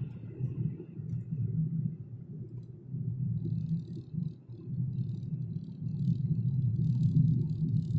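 Low, uneven rumble of a car's engine and tyres on the road, heard from inside the cabin, with faint crackling rattles joining in from about halfway through.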